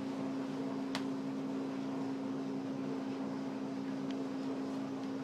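A steady machine hum with one even tone, like a fan or other running appliance, and a single sharp click about a second in.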